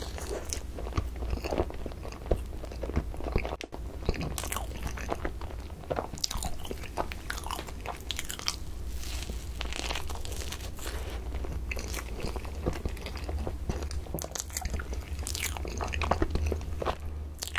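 Close-miked eating of a soft cream bun filled with fresh whipped cream: bites and chewing with many short clicking and smacking mouth noises.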